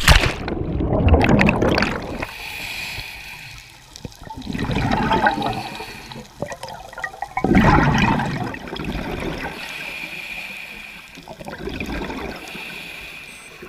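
Heard underwater: churning and bubbling water at a diver's entry, then three more surges of bubbling a few seconds apart, like scuba exhaust bubbles from a regulator.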